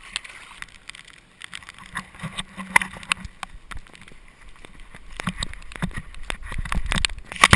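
Irregular taps and knocks on a wet camera over a low rumble of wind and surf that grows louder toward the end.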